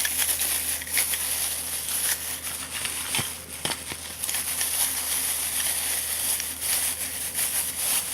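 Packaging crinkling and rustling as it is worked open by hand, with frequent small sharp clicks and crackles throughout.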